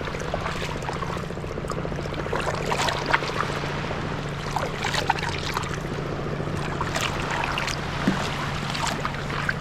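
Kayak paddles dipping and splashing in lake water, with water trickling and dripping off the blades in irregular strokes, over a steady low hum.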